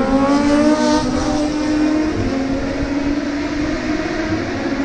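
Two superbikes racing past on the circuit, their engines at high revs, the pitch rising through the first second as they accelerate.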